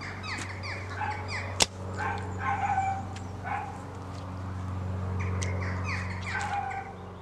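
Songbirds singing in runs of quick, falling chirps, over a steady low hum. A single sharp click cuts through about a second and a half in.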